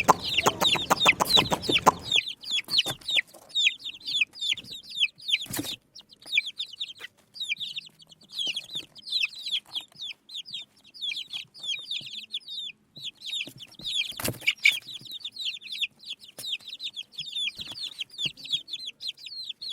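Baby chicks peeping continuously, many short, high, falling cheeps overlapping one another. For the first two seconds a louder, lower, rapidly pulsing sound runs under them, and there are two sharp knocks, about six and fourteen seconds in.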